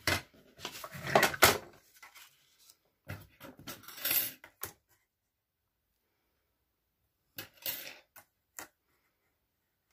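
Clear plastic cutting plates, cardstock and thin metal butterfly dies being set down and shifted on a die-cutting machine's platform: a string of sharp clicks and knocks in the first second and a half, a denser clatter from about three to four and a half seconds in, then a few light clicks near the eight-second mark.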